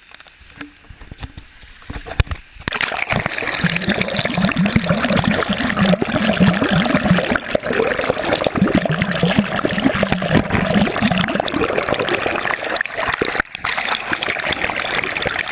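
Water splashing and rushing close to the microphone, starting suddenly about two and a half seconds in and going on steadily, with a brief break near the end.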